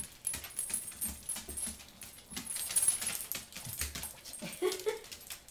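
Dogs playing: scuffling with light clicks and jingling, and a brief high whimper near the end.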